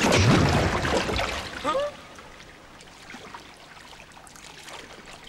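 Animated-film water sound effects: a loud rush of water that dies away over the first two seconds, a short squeak, then quiet trickling and dripping.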